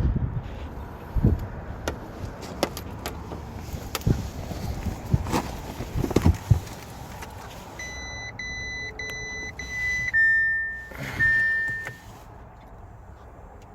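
A few clicks and knocks from handling inside the Audi Q7, then about eight seconds in the car's electronic warning chime: a quick run of short high beeps followed by two longer steady tones.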